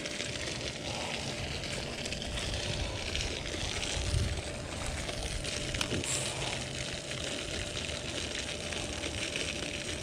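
Steady outdoor noise: a hiss with a flickering low rumble, with a single sharp click about six seconds in.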